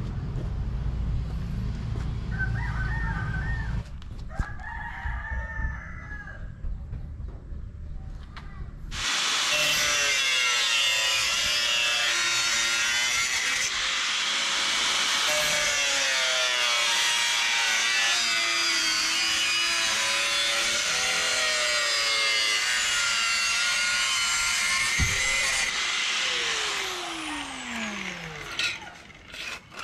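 Chickens and roosters calling over one another in a loud, dense chorus of crowing and clucking. It starts suddenly about nine seconds in, after a low rumble, and fades near the end.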